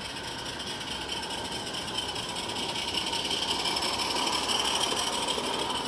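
Small 16mm-scale live-steam garden railway locomotive and its coaches running along the track: a steady hiss with the running of the train on the rails, growing louder as it comes closer.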